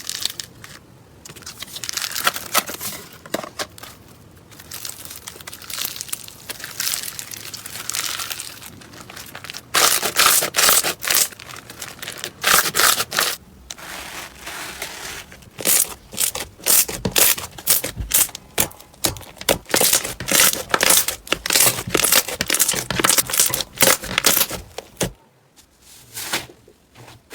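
Slime being squeezed, poked and stretched by hand, making rapid sticky clicks, pops and crackles. The crackling grows louder and denser about a third of the way in, then drops away briefly near the end.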